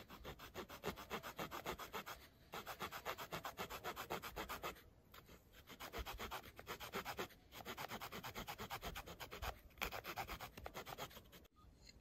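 Short folding wood-saw blade of a Ratnik 6E6 multitool sawing back and forth through a stick about an inch and a quarter thick. Quick rasping strokes, several a second, come in runs of a few seconds with brief pauses between them.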